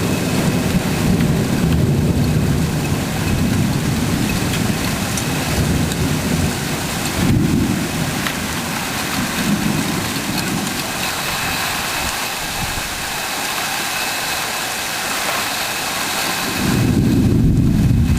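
Rain falling steadily with rolls of thunder: low rumbling in the first few seconds, a short burst about seven seconds in, and a louder rumble near the end.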